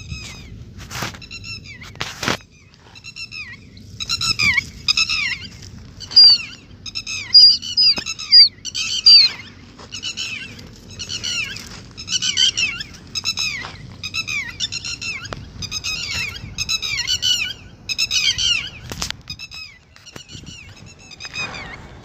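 Red-wattled lapwing calling: loud, harsh notes in quick runs of three to five, each note falling in pitch, repeated again and again. A few sharp knocks from handling come through near the start and again near the end.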